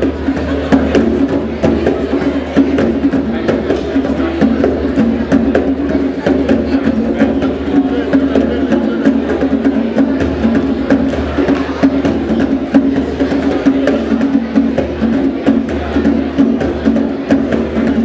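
Several djembe drums played by hand together in a fast, unbroken rhythm of dense slaps and tones.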